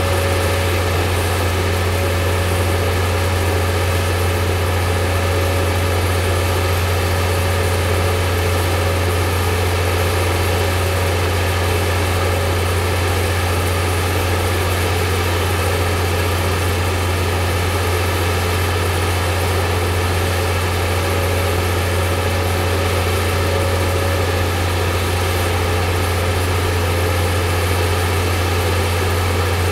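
Large crane's engine running steadily under load as it hoists a water tower tank, a low, even drone with no change in pitch.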